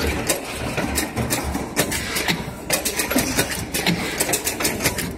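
Automatic horizontal-blind production machine running: a quick, irregular series of sharp mechanical clicks and knocks, about three or four a second, over a low machine hum.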